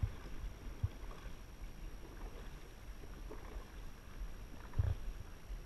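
Dragon boat under paddle: water splashing and rushing along the hull as the crew strokes, with a few short low thumps, the loudest near the end.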